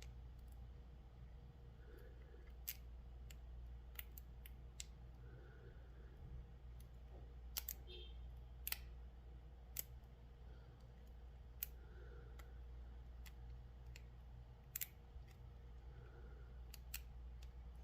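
Faint, scattered metallic clicks of a long-reach hook pick working the pin tumblers of a small brass padlock held under tension, a dozen or so irregular ticks over a low steady hum.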